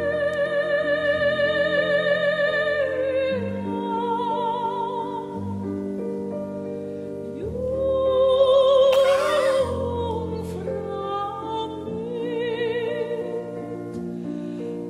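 Operatic music: a high sung line with wide vibrato over slow, sustained chords that change every second or two. About eight seconds in comes a brief, loud, crash-like swell.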